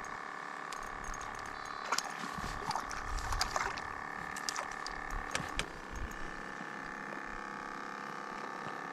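Hooked crappie splashing at the water surface as it is reeled toward the boat: a cluster of short, sharp splashes about two to four seconds in and a few more just past the middle.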